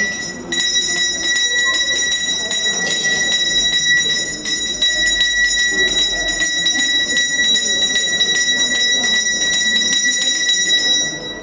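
A bell ringing without pause during the aarti lamp offering: a steady high ring with rapid, regular strikes. It stops near the end.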